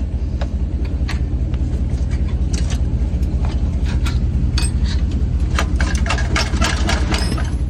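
Heavy diesel truck engine idling with a steady low throb, while metal tools clink and tap against the exhaust aftertreatment parts in a run of sharp clicks through the middle and latter part.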